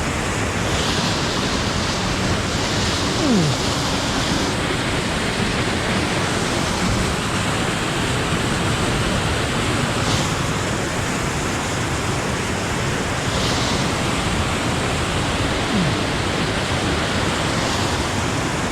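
Waterfall close by, a loud steady rush of falling water.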